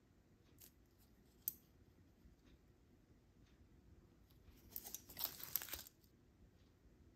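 A single sharp click about a second and a half in, then about a second and a half of crackly crinkling and tearing, as of a plastic wrapper being pulled open, about four and a half seconds in.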